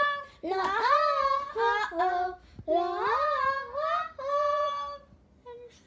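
A young girl singing unaccompanied: several sung phrases of held, gliding notes with short breaths between them, dying away about five seconds in.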